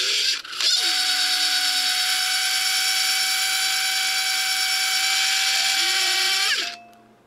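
Opened Seagate 1 TB 7200 RPM hard drive running with its cover off, a loud harsh mechanical screech over a steady whine. It dips briefly about half a second in and cuts off suddenly near the end.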